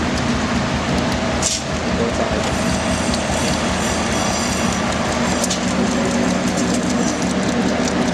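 Shaking table (gravity concentrator) running: the head mechanism drives the deck back and forth in a steady, rapid, even rhythm with a clattering mechanical sound. A single sharper click stands out about one and a half seconds in.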